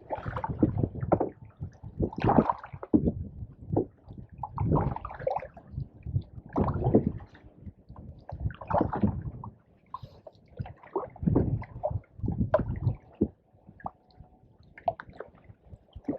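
Canoe paddle strokes in pond water: a run of gurgling splashes about every one to two seconds as the paddle dips and pulls.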